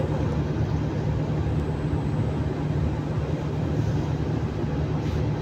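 Steady low hum and rumble inside a Singapore MRT CT251 train standing at the platform, with an even hiss on top and no distinct knocks or clicks.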